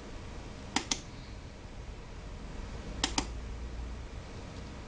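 Push-button switch on a battery-powered 24-LED camping light pressed twice, each press a quick double click of press and release, about two seconds apart, switching the light.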